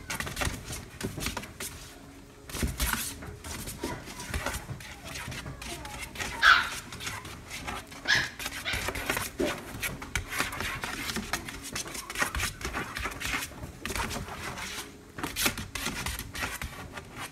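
Long-haired dachshund puppy giving a few short yips, the loudest about six and a half and eight seconds in, amid soft rustling and scratching from being handled and moving about on a fabric mat.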